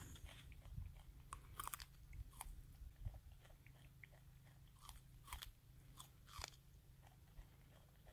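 Wallaby biting and chewing kernels off a hand-held cob of sweet corn: a string of irregular, short, crisp crunches.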